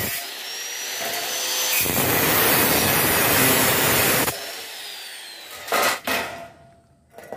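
Angle grinder with a cutting disc cutting through a galvanized light-steel C-channel: a loud, harsh grinding that eases for a moment early on, comes back, and stops a little past halfway, the disc whining down as it slows. A couple of sharp metallic knocks follow near the end.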